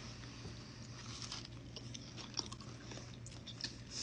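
Faint mouth sounds of people chewing soft-baked cookies, with small scattered clicks over a low steady hum.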